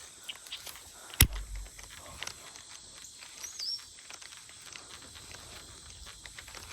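Fishing rod and reel handled while working a topwater frog lure: a sharp click about a second in with a low thump after it, then light irregular ticking over faint outdoor background, and a short chirp in the middle.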